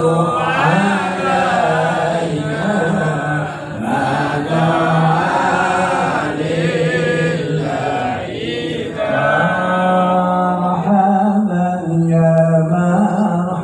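A male voice, amplified through a microphone and PA, chants a devotional sholawat melody in long, held, ornamented notes, with other voices possibly joining in.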